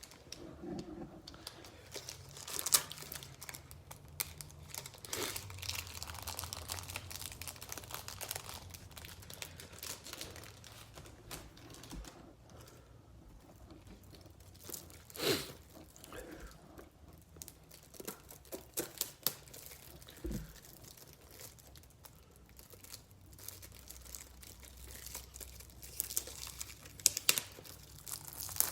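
Plastic wrapping crinkling and being torn in irregular handling, with a few sharp louder crackles.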